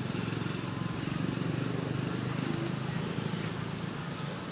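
A steady low engine hum that runs evenly, with a thin steady high-pitched tone above it.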